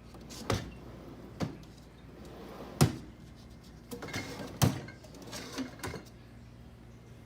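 A series of sharp knocks and clicks, the loudest about three seconds in, over a low steady hum.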